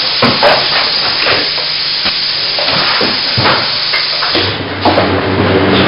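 Mezger SHA 81 automatic carton-tray stapling machine running: pneumatic hissing with repeated clacks and knocks as the suction lifters pick cardboard blanks off the stack and the rollers feed them in. A low machine hum runs underneath and deepens about four seconds in.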